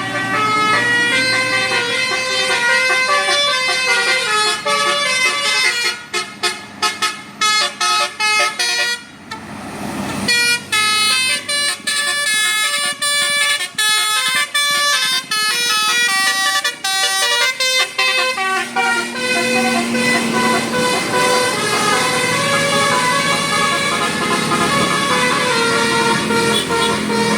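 Bus telolet basuri multi-tone horn playing a melody: a fast run of stepped tooting notes, choppy with short breaks between about six and ten seconds in, then flowing on.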